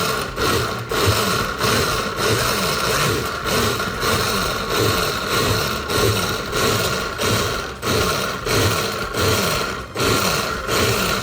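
Personal blender pulsing, its motor whine cutting in and out about once a second as it chops lime wedges in water.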